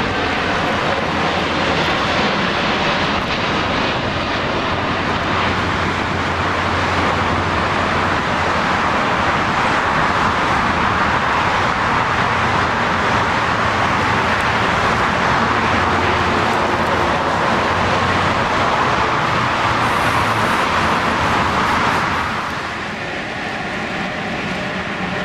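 A large cargo jet's engines passing close, a loud roar that swells toward the middle and drops off sharply near the end, leaving a quieter steady whine.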